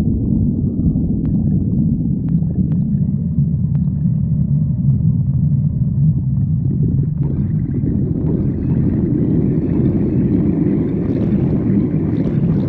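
A person's hungry stomach growling: a continuous low rumbling gurgle that grows fuller and brighter about halfway through.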